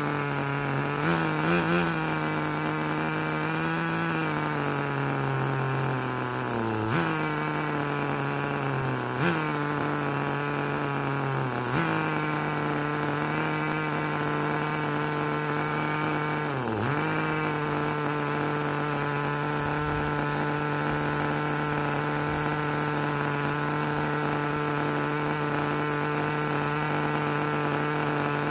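Tamiya 1/10 RC car's small two-stroke nitro glow engine running at idle with the glow igniter still on, its speed stepping down and up several times and sagging sharply once about two-thirds through before recovering, then starting to fall right at the end. It is unsteady and close to dying: a cold, long-unused engine whose mixture the owner thinks is too rich and will probably need leaning.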